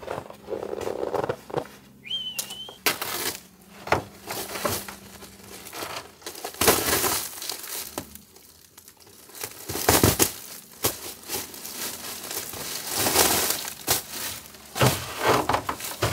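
Thin plastic wrap around a stack of insulation packs being cut open and pulled away by hand, crinkling and rustling in irregular bursts.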